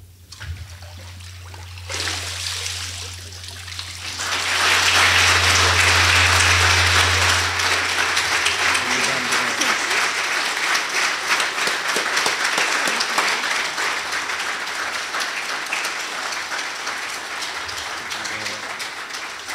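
Congregation applauding a baptism by immersion. The clapping starts about two seconds in, swells to a peak a few seconds later and slowly tapers off, with a low steady hum underneath for the first half.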